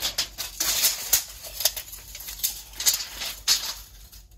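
Steel tape measure being pulled out and laid along a table, its blade giving irregular clicks and rasping rattles.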